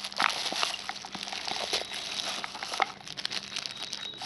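Plastic packaging crinkling and crackling as it is handled, with irregular sharp crackles throughout.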